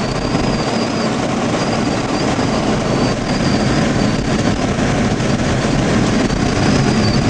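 Steady road and engine noise of a car driving, heard from inside the cabin, with a thin high whine that comes and goes.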